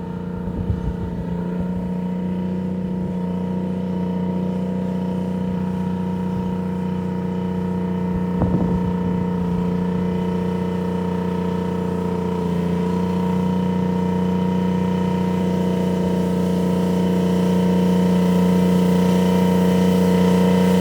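Terex 82-20 bulldozer's diesel engine running steadily, with a knock near the start and another about eight seconds in; the engine grows slightly louder toward the end.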